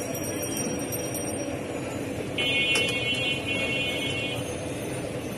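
Steady, busy street-market noise. A shrill, high-pitched alarm-like tone cuts in about halfway through and lasts roughly two seconds.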